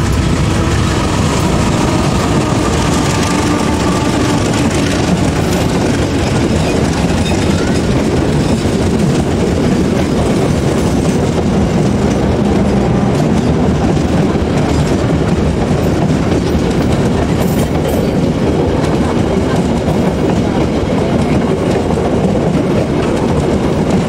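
Diesel-hauled KAI passenger train passing close by. Its coaches' wheels run over the rails in a steady, loud rumble.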